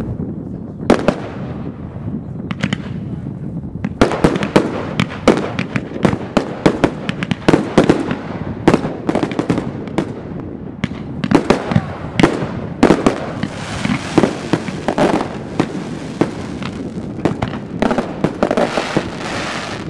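Professional firework display with aerial shells bursting. A few separate bangs come first, then rapid volleys of sharp bangs from about four seconds in, with a continuous hiss joining the bangs about two-thirds of the way through.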